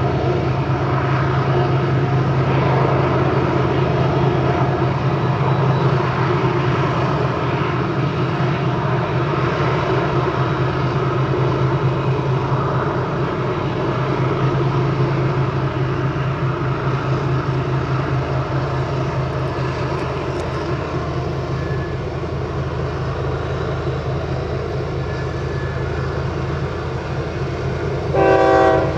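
Union Pacific diesel-electric freight locomotives working hard under load, a steady deep engine drone. Near the end comes one short locomotive horn blast, the loudest moment.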